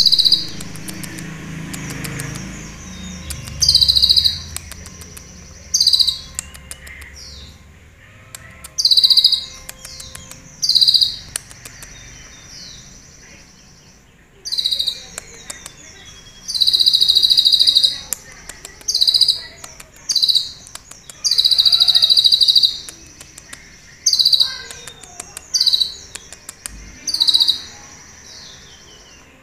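Caged male purple-throated sunbird (kolibri ninja) singing loud, high-pitched, clean song bursts, repeated every second or two with short pauses. The song is filled with phrases learned from the cililin bird, delivered in rapid 'nembak' volleys. A low rumble sits under the first few seconds.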